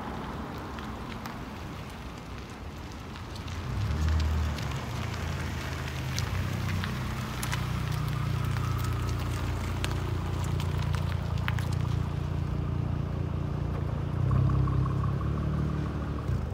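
Mercedes-Benz SL (R230) with an all-titanium custom exhaust running at low speed as the car comes up, passes close and pulls away. The deep exhaust note swells about four seconds in and again near the end, with scattered light ticks in between.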